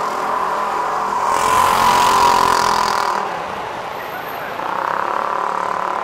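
City street traffic: a vehicle passes, its noise swelling and fading between about one and three seconds in, over a steady hum of traffic.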